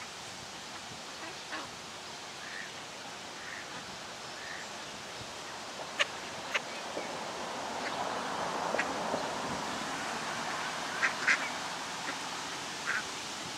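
Flock of mallard ducks and ducklings giving scattered short quacks and calls. Two sharp clicks about six seconds in are the loudest sounds, and a rushing noise swells for a few seconds after them.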